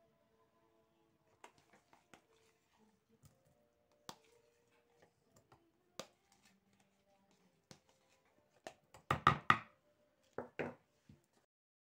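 Kitchen handling noise: soft clicks and knocks of a plastic cheese tub and whisk against a plastic mixing bowl as crumbled fresh cheese is tipped into batter. A louder quick run of knocks comes about nine seconds in, and two more a second later.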